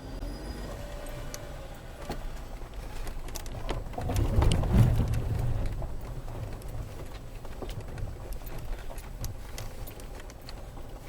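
Land Rover Freelander 2 driving slowly off-road, heard from inside the cabin: a low engine and cabin rumble with scattered knocks and ticks from the body and tyres. It swells louder for a second or two about four seconds in.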